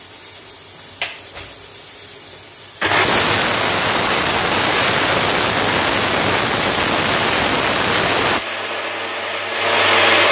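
Electric mixer grinder grinding a masala of spices and onion. It runs at a quieter whirr with a click about a second in, then goes loud and steady about three seconds in for some five seconds, drops back, and speeds up again near the end.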